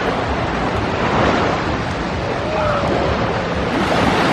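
Ocean surf washing steadily around the waders, with wind buffeting the microphone.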